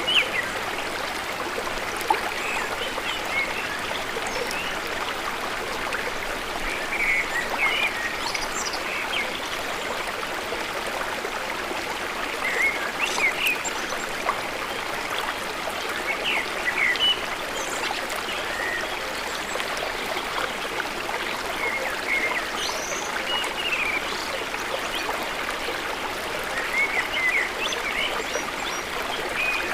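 Steady rushing of running water, with scattered short high chirps over it.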